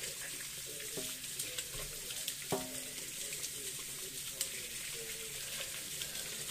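Kitchen faucet running into a stainless steel sink while soapy hands are rubbed and rinsed under the stream, a steady splashing hiss with small wet clicks. A short pitched sound comes near the middle.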